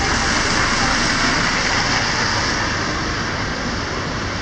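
London bus driving past over a rain-soaked road, its tyres hissing on the wet surface, loudest in the first two seconds and then fading into the steady hiss of rain and street traffic.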